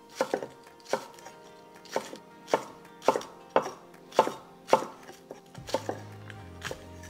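Chef's knife slicing green onions on a wooden cutting board, the blade knocking on the board about twice a second, with the strokes getting lighter near the end.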